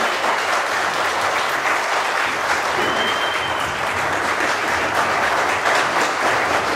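Audience applauding: steady clapping from a hall full of people, with a brief high tone about three seconds in.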